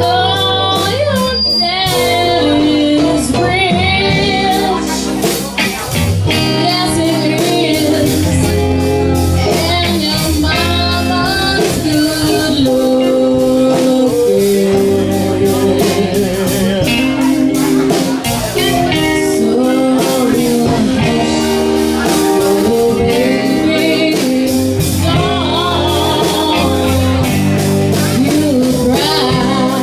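Live classic-rock cover band playing: a woman singing lead over two electric guitars and a drum kit, with steady drum hits throughout.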